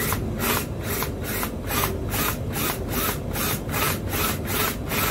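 Hand sawing, a fast, even back-and-forth scraping of about four strokes a second, cutting through wood to make a cable entry.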